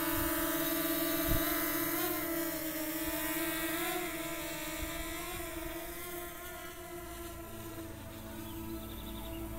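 DJI Mini 2 quadcopter's propellers whining in a steady multi-tone hum during takeoff and climb. The pitch wavers as it manoeuvres, and the sound fades gradually as the drone rises away. A brief low thump comes about a second in.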